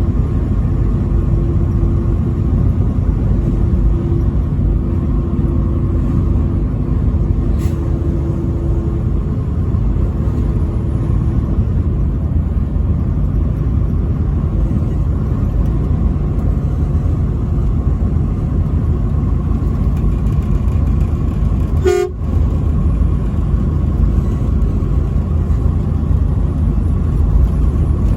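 Steady engine and road rumble from a truck on the interstate, with a sustained two-note horn sounding over it for the first nine seconds or so before it fades away. A single sharp click comes about three-quarters of the way through.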